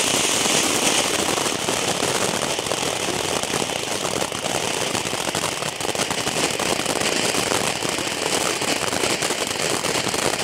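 Ground firework fountain spraying sparks: a steady loud hiss filled with dense, fast crackling.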